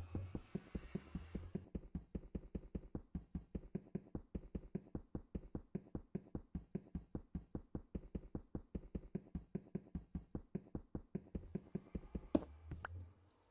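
Rapid, even mechanical ticking at about five ticks a second, typical of the clockwork mechanism in a cathedral bell tower. It ends with two sharp knocks near the end.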